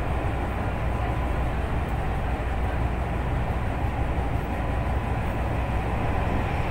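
Running noise of a Tokyu Toyoko Line limited express commuter train heard from inside the car: a steady low rumble of wheels on rail, with a faint steady whine through the first few seconds.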